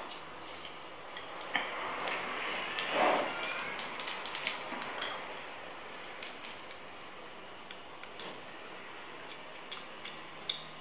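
Small scattered clicks and crackles of cooked crab shell being cracked and picked apart by hand, with a louder rustling scrape about two to three seconds in.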